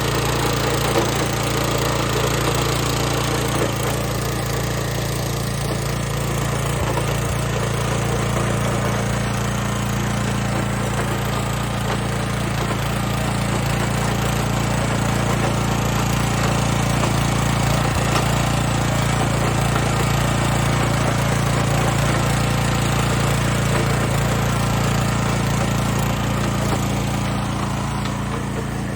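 Petrol rotavator's small engine running steadily under load as its tines turn over the soil.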